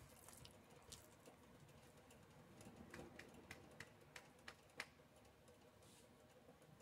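Faint, irregular light clicks and ticks as a metal spoon stirs a thick mashed squash mixture in a stainless steel pan, over a quiet hiss.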